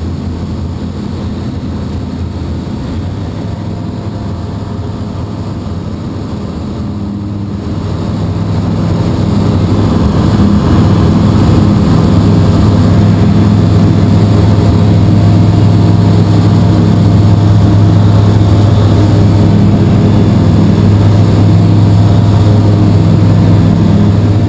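Bristell light sport aircraft's piston engine and propeller running steadily in flight, heard from inside the cockpit. The drone grows louder about eight seconds in and then holds steady.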